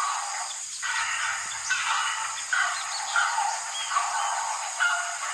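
Heron calling, short calls repeated about every second over a steady hiss.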